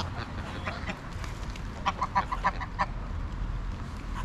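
Greylag geese calling, with a quick run of about seven short honks a little under two seconds in, over a low steady rumble.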